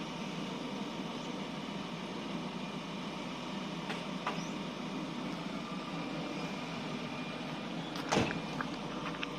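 Volvo excavator's diesel engine running steadily under test operation, with a couple of faint clicks about four seconds in and a louder sharp clank near the end.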